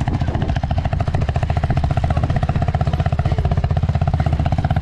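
Single-cylinder off-road engine running steadily at low speed, a fast even putter of exhaust pulses.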